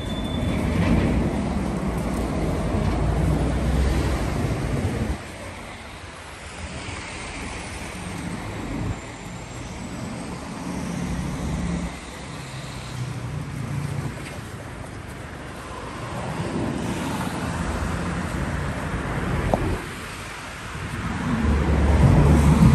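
Street ambience of road traffic, cars passing, with wind rumbling on the microphone; the sound changes abruptly several times as short clips are cut together.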